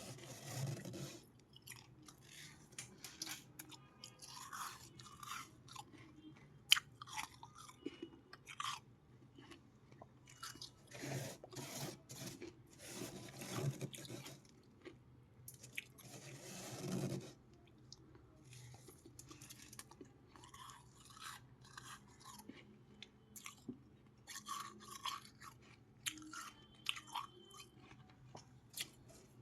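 A person biting and chewing freezer ice close to the microphone: irregular soft crunches and crackles, with a few louder bites spread through and one sharp snap about seven seconds in.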